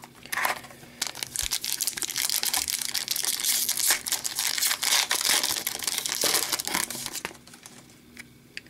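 Foil wrapper of an Upper Deck hockey card pack crinkling and tearing as it is opened by hand: a dense crackle from about a second in that stops about a second before the end.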